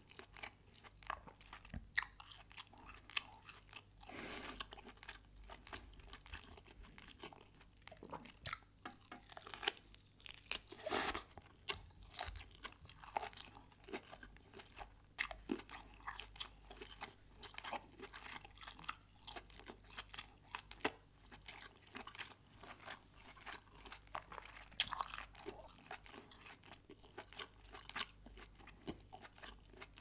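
A person chewing and biting pieces of cooked lobster meat, with many short sharp mouth clicks and a few longer bursts of chewing noise.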